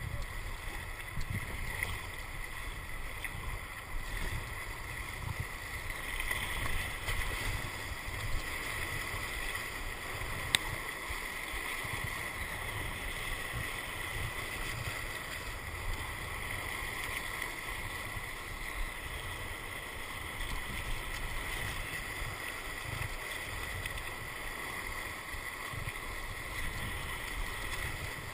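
Whitewater rushing and splashing around a kayak surfing a river wave, with low gusty wind buffeting on the microphone. A single sharp knock about ten seconds in.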